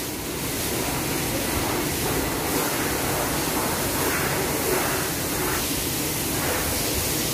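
Steady rushing noise of a cattle shed's overhead ventilation fans running.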